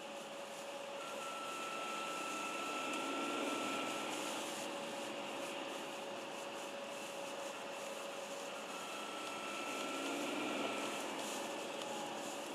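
BMW E46 330d's straight-six turbodiesel running with a steady high whistle, the whine growing louder and a higher whistling tone coming in twice, about a third of the way in and again near the end.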